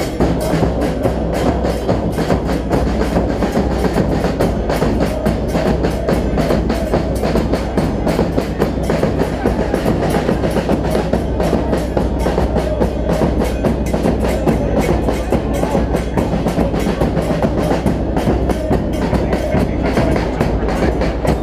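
A supporters' group's bass drums and percussion beating in a fast, steady rhythm in the stands, over a dense wash of crowd noise.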